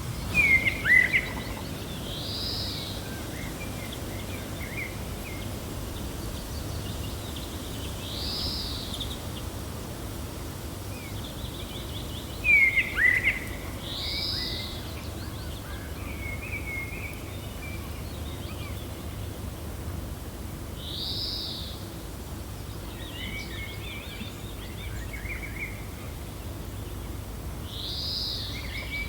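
Gentle wind makes a steady low rumble under bird calls. A high, arched call repeats about every six seconds, and twice a bird gives a burst of loud, sharp, falling chirps.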